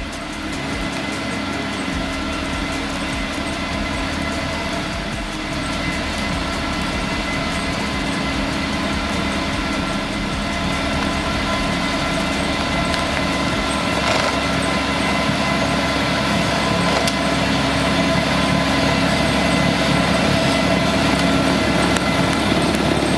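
A machine's engine running steadily, its level slowly rising.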